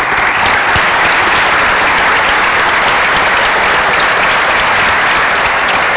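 Audience applauding, a steady, dense clapping held at the same level throughout.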